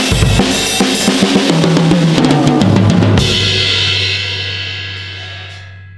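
Drum kit played with a quick run of snare, tom and bass drum strokes, ending about three seconds in on a final crash; the cymbals and drums then ring and fade away.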